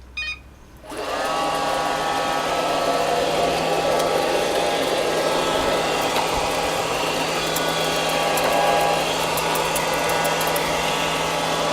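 Robotic vacuum cleaner starting up: a brief beep, then about a second in its motor and counter-rotating brushes spin up and run with a steady whir and hum.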